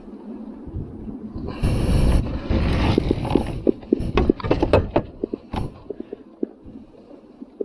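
Handling noise on a fishing kayak: a burst of rushing noise about one and a half seconds in, then a quick run of irregular clicks and knocks that thins out toward the end.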